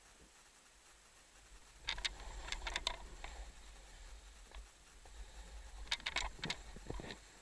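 Skis scraping and chattering on firm snow in two bursts of turns, about two seconds in and again about six seconds in, over a low wind rumble on the helmet-camera microphone.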